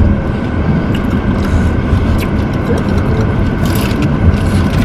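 Steady road and engine noise inside a moving car's cabin, with a few faint clicks and crinkles.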